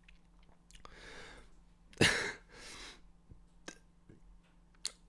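A man coughing once, suddenly, about two seconds in, followed by a softer breath out. A couple of short clicks come near the end.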